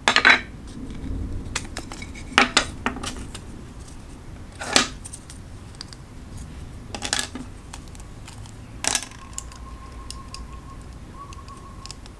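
Clear hard-plastic pen cases and diamond painting pens clicking and clacking against each other and the wooden table as the cases are opened and the pens taken out. There are a handful of separate sharp clicks, the loudest right at the start and about five seconds in.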